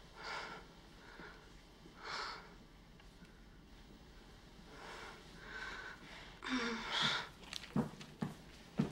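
A young woman's shaky breaths and sniffs, then a louder gasping breath with a brief catch of voice about six and a half seconds in, followed by quick footsteps near the end.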